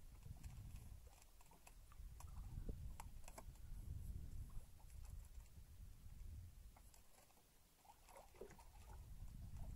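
Faint scattered clicks and taps of a hand line and gear being handled at a small boat's side, over a low rumble that swells and fades.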